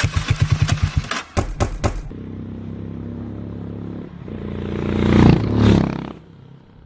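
Harley-Davidson X440's single-cylinder engine and exhaust: a fast, even beat of about seven thumps a second, then a steadier running note, which swells twice in quick succession to its loudest about five seconds in and then dies away.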